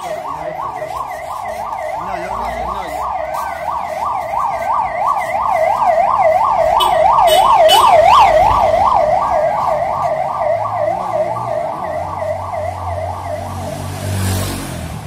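A fast yelping vehicle siren sweeping up and down about three times a second, growing louder to a peak in the middle and then fading. Near the end there is a short rush of noise.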